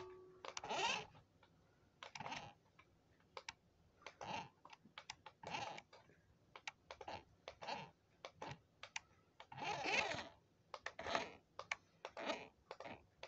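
Small toy RC car driven in short spurts: its little electric motor and plastic gears buzz briefly about a dozen times, irregularly, with scattered clicks between.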